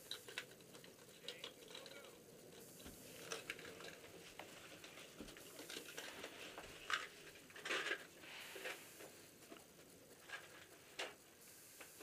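Faint scattered ticks and short rustles, the sound of someone shifting about and handling clothing and gear in a small wooden shelter, with a few slightly louder rustles in the second half.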